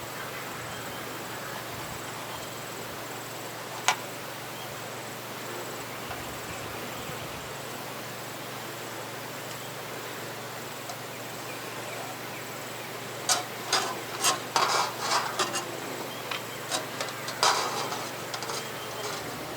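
Steady hiss with a single sharp tap about four seconds in, then from about thirteen seconds a run of irregular clicks, taps and scrapes, such as tools and metal pieces being handled at a workbench.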